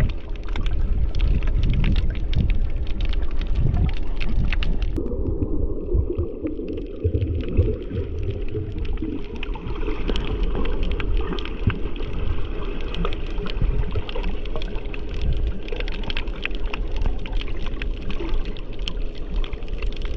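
Underwater sound picked up by the camera in its housing: a low rumble of moving water with a constant scatter of sharp clicks and crackles.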